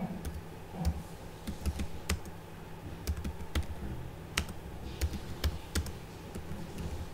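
Computer keyboard being typed on: irregular keystroke clicks, about two a second, over a low steady hum.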